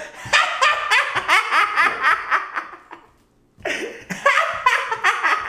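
Hearty laughter in two bouts, broken by a short pause about three seconds in.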